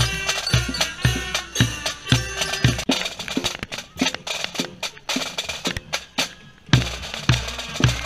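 Marching band of drums and bugles playing: a bass drum beats about twice a second under sharp snare and rim clicks and held high notes. Past the middle the bass drum drops out and the sound thins to lighter clicks, then the full beat returns strongly about seven seconds in.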